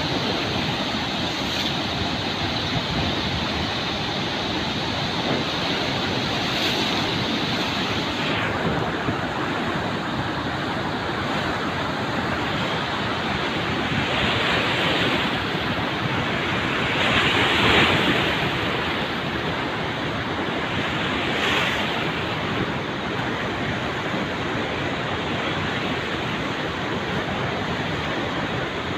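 Tungabhadra River in flood: a steady rush of fast-flowing water, swelling briefly a little past halfway.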